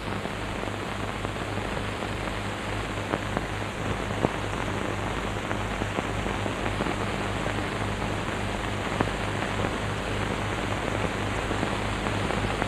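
Hiss and crackle of a worn old film soundtrack, with a steady low mains hum and scattered sharp clicks.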